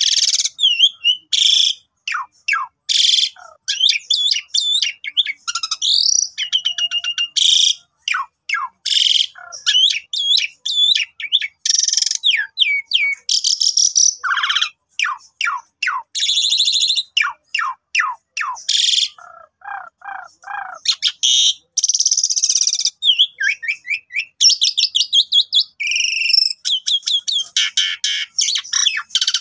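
Asian pied starling (jalak suren) singing a long, varied song. It mixes quick falling whistles, harsh rasping bursts and trills, with a short run of lower pulsed notes about two-thirds of the way through.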